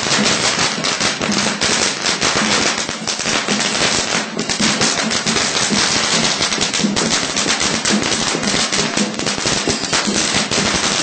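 A long string of firecrackers going off, a rapid, unbroken stream of sharp cracks.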